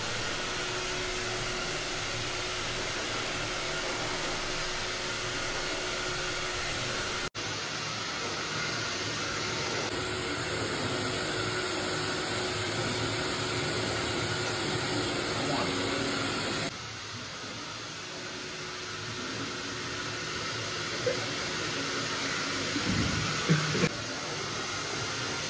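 Steady rushing noise, like a fan or small motor, with a faint hum, broken by several abrupt cuts. A few short knocks come near the end.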